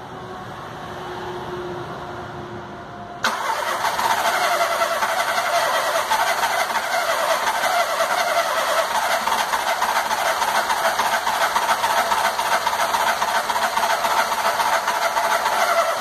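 Starter motor cranking the freshly rebuilt VW Gol's EA111 1.0 four-cylinder engine for about thirteen seconds. It starts abruptly a few seconds in and stops suddenly, turning the engine over without it catching on this first start attempt.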